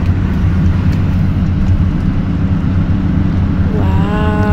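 Steady low rumble of road and engine noise inside a moving van's cabin. Near the end a held pitched tone comes in over it, rising slightly and then steady.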